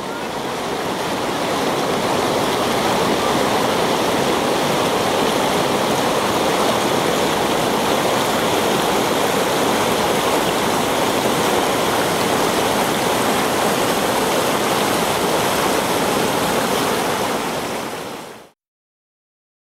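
Waterfall: thin curtains of water falling down a rock face and splashing, a steady rushing hiss, fading out near the end.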